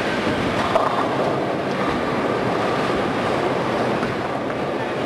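Steady rumbling din of a busy bowling hall, with bowling balls rolling down the lanes and pins clattering on many lanes at once.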